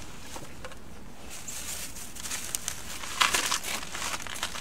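Tissue paper in a shoebox crinkling and rustling as it is pulled back from the shoes, in short spells; the loudest comes about three seconds in.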